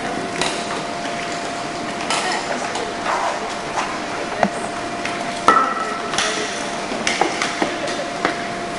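Irregular sharp clicks and knocks, about ten of them, over a steady faint hum and hiss, heard underwater among scuba divers on the pool floor.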